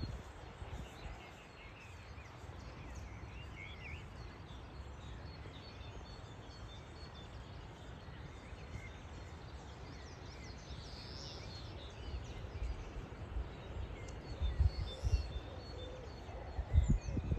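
Outdoor ambience: a steady low background hiss with faint, scattered bird chirps, and low rumbling gusts, likely wind on the microphone, in the last few seconds.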